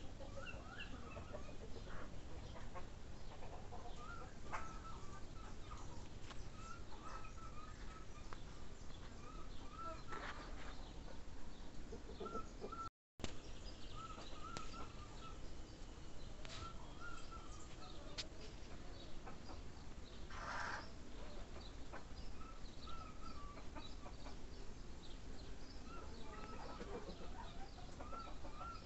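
Birds calling in the background: many short, repeated calls scattered throughout, over a low steady background hiss, with a brief cut to silence about thirteen seconds in.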